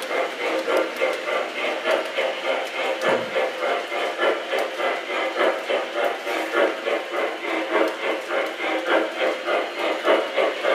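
MTH O-gauge L&N Berkshire model steam locomotive running with its passenger cars: a steady, rhythmic chuffing of about three beats a second from the locomotive's sound system, mixed with the wheels rolling on the three-rail track.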